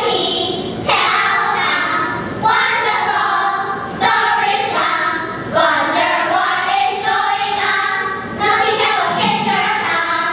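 A group of children singing together, in phrases of held notes that restart every second or two.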